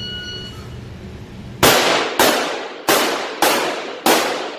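A short beep, then a Glock 34 9mm pistol firing rapid shots: five about half a second apart from about a second and a half in, a sixth right at the end. Each shot echoes off the walls of the indoor range.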